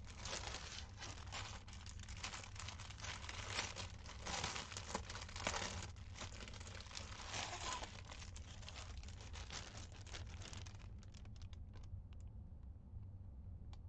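Clear plastic packaging bag of a cross stitch kit crinkling and rustling as it is handled, busy at first and thinning to a few scattered crinkles after about eleven seconds, over a faint low hum.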